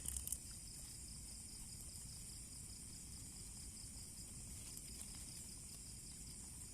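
Steady chorus of crickets and other insects: a continuous high trill with a faint, even pulse.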